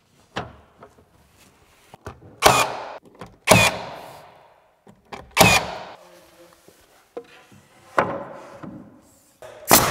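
Cordless nailer firing nails into pine base trim: about six sharp shots a second or two apart, each followed by a brief whir.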